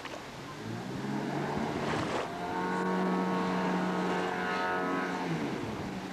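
Nissan car engine driving a 155 mm waterjet on a Ladoga-2 boat, running with a steady drone. It grows louder about two seconds in and eases off near the end. The exhaust is quieted by water fed into the exhaust pipe.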